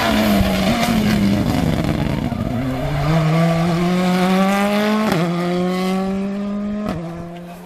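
Hyundai i20 Rally2 car's turbocharged four-cylinder engine at full stage pace: revs fall off at first, then climb hard through the gears, with upshifts about five and seven seconds in.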